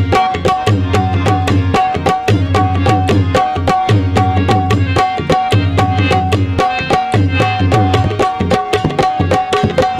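Instrumental passage of a Sufi dhamal: a harmonium playing a repeating melody over a fast, steady hand-drum beat.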